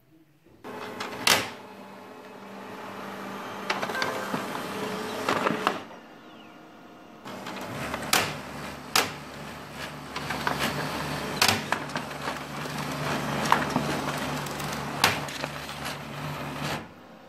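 HP LaserJet P3005 laser printer running in two spells, a steady motor hum with sharp clicks and clunks from its gears and paper path. Each spell stops abruptly.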